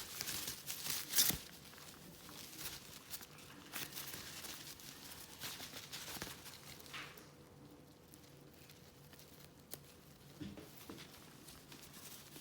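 Blue-and-gold macaw preening: rustling of feathers and small clicks of the beak, busiest for the first several seconds and then fainter with a few isolated ticks.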